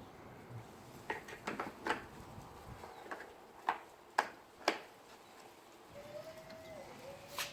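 A series of short, sharp clicks and knocks, about six of them spread over a few seconds, then a faint wavering whine near the end.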